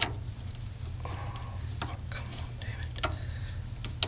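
A few sharp clicks and taps of a hand tool on the truck battery's negative terminal clamp as it is screwed down, over a steady low hum.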